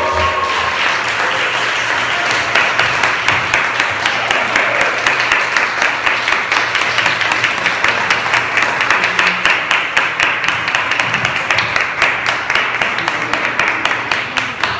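Small audience applauding, a dense patter of many hands clapping that thins out near the end.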